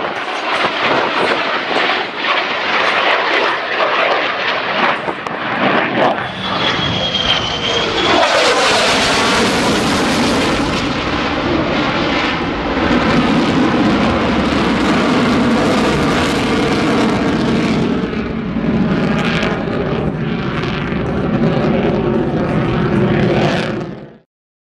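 Jet noise from the F-35A Lightning II's single Pratt & Whitney F135 turbofan as the fighter flies overhead. Its pitch falls as it passes, about eight seconds in, then it settles into a steady rumbling roar that cuts off suddenly near the end.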